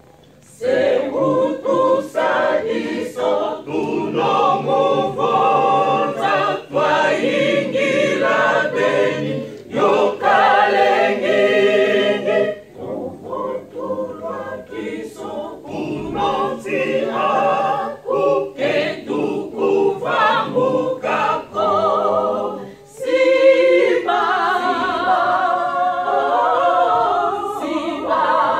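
Mixed choir of men's and women's voices singing together, starting about half a second in, with short breaks between phrases.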